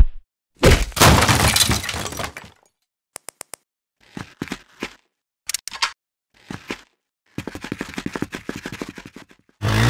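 Added sound effects: a loud crash of breaking glass about a second in, lasting about two seconds, then four quick clicks, a few scattered short knocks, and a fast rattling run near the end.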